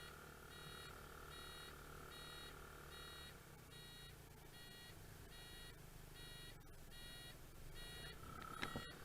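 Faint electronic beeping, a short multi-tone beep repeating evenly about one and a half times a second, over a low hum that fades out about three and a half seconds in.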